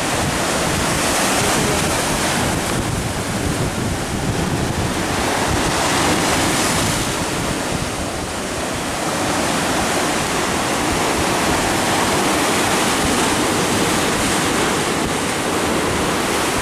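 Sea surf breaking and washing up over sand and rocks, a continuous rush that swells and eases every few seconds, with wind buffeting the microphone.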